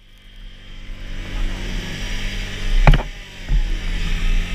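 Can-Am Renegade 570 ATV's V-twin engine running steadily at idle, swelling up from quiet over the first second or two, with a sharp knock about three seconds in.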